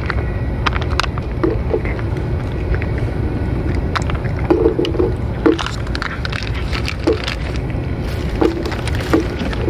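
A cat eating wet food from a metal dish: irregular chewing clicks and smacks, with a few short squeaky blips, over a steady low background rumble.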